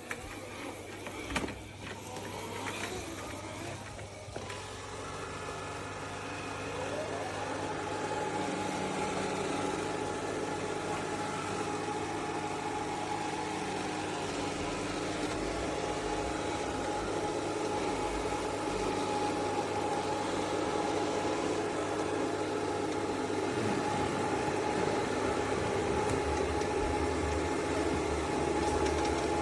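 Motor of an ECOVACS DEEBOT T80 Omni robot vacuum-mop whirring. It spins up over about a second, some six seconds in, then runs steadily at a higher pitch, after a few light knocks near the start.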